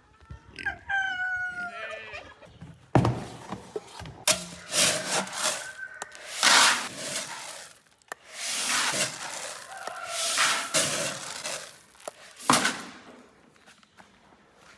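Chickens clucking and calling, with scuffling noise and a couple of sharp knocks, about three seconds in and near the end.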